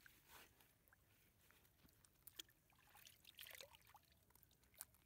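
Near silence: faint dripping and splashing of water, with scattered small clicks and rustles as a fish is worked free of a wet gill net by hand.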